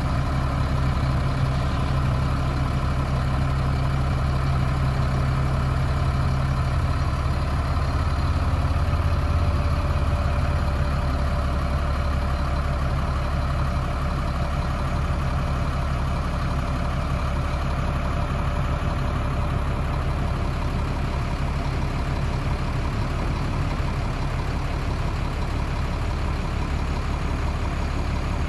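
Caterpillar 3126 inline-six diesel of a Peterbilt 330 dump truck running steadily while the hydraulic hoist raises the dump bed.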